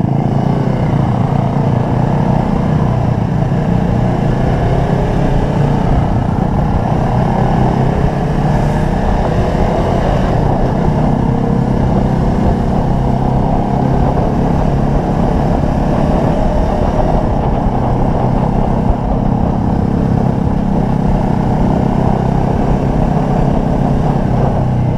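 Sport motorcycle engine running steadily under way at a fairly even pace, with wind and road noise on the microphone.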